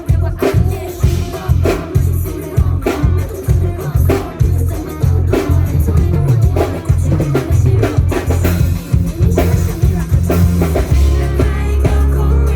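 Loud amplified pop music played through a PA system: a heavy bass and drum beat with singing over it.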